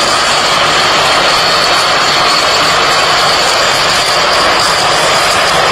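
Tracked rice combine harvesters running loud: a steady, dense machine noise of engine and threshing gear, with a thin high whine held over it.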